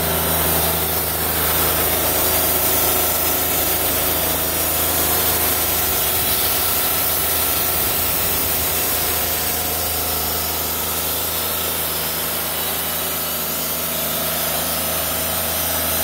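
Wood-Mizer LT40 portable bandsaw sawmill running steadily as its band blade cuts lengthwise through an eastern red cedar log.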